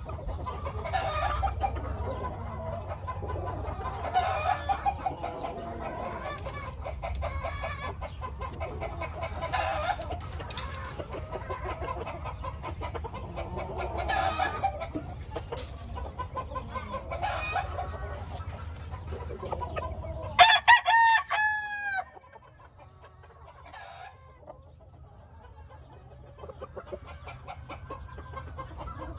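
Gamecocks and hens in a pen, clucking and crowing over one another. About twenty seconds in, a rooster crows loudly close by, one long crow that falls in pitch at the end. After it the yard is quieter, with fainter crowing.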